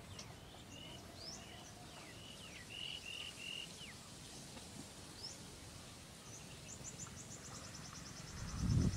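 Small birds chirping and whistling in short, separate calls, with a fast high trill in the second half, over a low background hiss. A loud low rumble starts just before the end.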